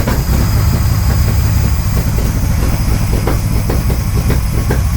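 The 1938 SS Jaguar 3½ Litre's straight-six engine idling steadily, just after being started.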